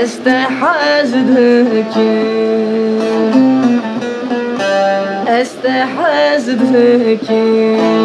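Kurdish song music: an instrumental passage led by a plucked string instrument, playing an ornamented melody over sustained backing notes.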